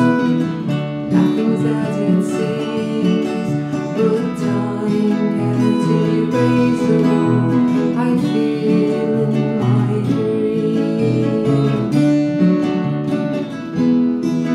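Two acoustic guitars playing together in a folk song, a steady run of picked and strummed notes ringing on.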